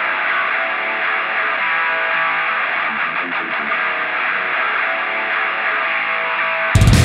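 Background rock music: a distorted electric guitar strumming, sounding thin and muffled. Near the end the full band comes in loudly with drums and bass.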